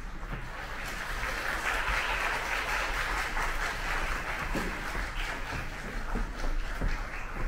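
Audience applauding in the concert hall, heard from backstage through the stage door; the applause swells about a second in and carries on steadily.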